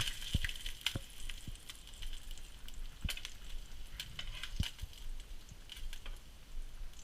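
Trout frying in hot oil in a pan: a steady sizzle full of small crackles and pops, with a few soft knocks.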